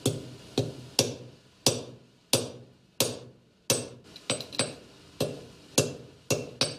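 A blacksmith's hand hammer striking hot iron on an anvil, about a dozen ringing blows at a steady pace of just under two a second, with a few quicker double strikes in the middle and near the end, as a hinge branch is forged.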